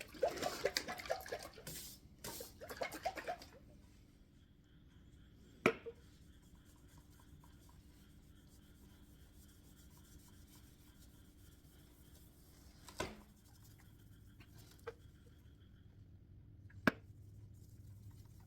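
A polishing cloth rubbing on the metal of a motorcycle expansion chamber in quick back-and-forth strokes for about four seconds, in two runs. After that, three or four sharp clicks or taps over a faint steady hum.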